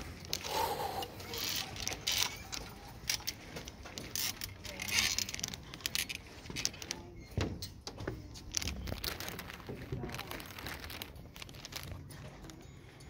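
Footsteps on a suspended walkway's metal grating deck, with irregular light clicks and rattles.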